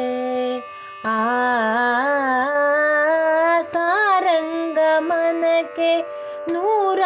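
Kannada devotional song to Shiva: a singer holds long, drawn-out notes with slides and ornaments over a steady drone, pausing briefly for breath about a second in.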